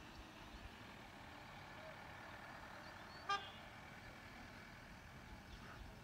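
A single short vehicle horn toot about halfway through, over faint outdoor ambience.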